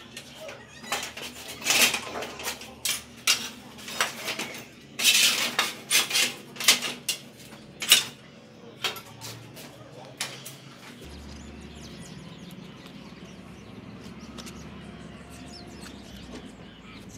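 Metal clanks and rattles of an old, rusty bicycle being handled and moved about: a quick, irregular run of sharp knocks. Then the clanking stops and only a steady, faint background noise remains.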